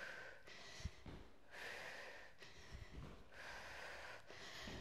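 A person breathing hard and loud through the mouth during frog jumps, about three forceful breaths roughly a second and a half apart. Faint low thuds of sneakers landing on an exercise mat come in between.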